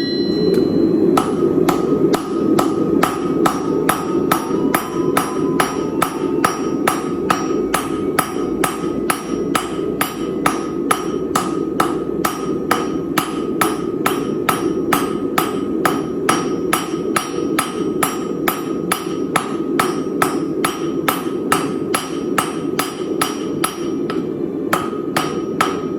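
Hammer striking a Chinese-style turtle anvil at an even pace of about two blows a second, with a dull sound and little ring, over a steady low rushing noise. The anvil's cast-iron body fused to a tool-steel face deadens it.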